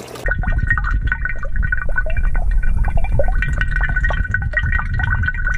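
Water in an aerated fish tank churning and bubbling, heard from under the surface: air rising from an aquarium sponge filter and a pipe's inflow stirring the water. It has a deep rumble and a steady thin high tone running through it.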